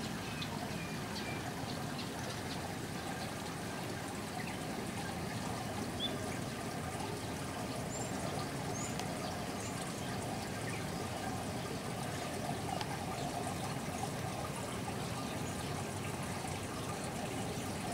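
Steady trickling, running water, with a few faint high bird chirps over it.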